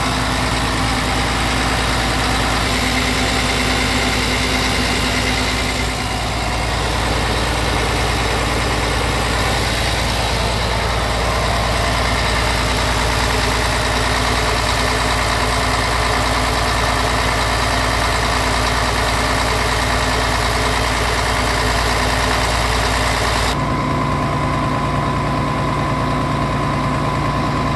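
Scania R tractor unit's diesel engine idling steadily. It turns duller about 23 seconds in.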